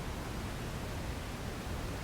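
Steady synthetic white noise: an even, unchanging hiss that is fuller in the low end.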